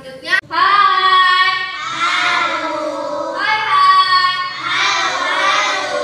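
A class of young children singing a song together in unison, with long held notes; the singing comes in loudly about half a second in.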